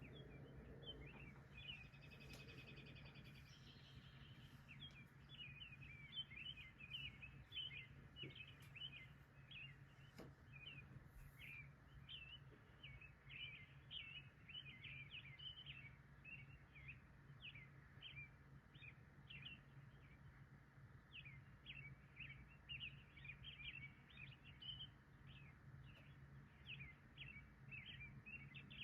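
Faint birds chirping: a longer call a couple of seconds in, then many short quick chirps several a second. A steady low hum runs underneath.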